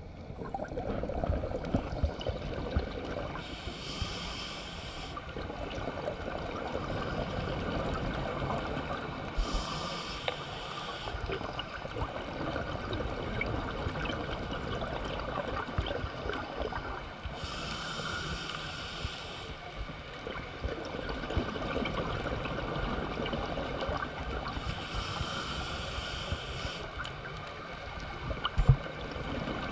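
Underwater bubbling of a scuba diver's exhaled breath from a regulator, in four bursts of a second or two each, several seconds apart, over a steady low underwater rumble. A single sharp knock comes near the end.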